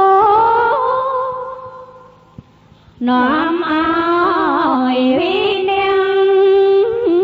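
A single voice chanting a Buddhist text in long, drawn-out melodic notes. The first phrase fades out about two seconds in, and a new phrase starts about three seconds in, stepping and sliding between held pitches.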